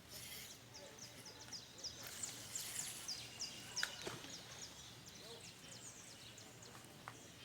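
Birds chirping: a rapid series of short, high-pitched notes in the first few seconds, then fewer, scattered calls over a steady outdoor hiss.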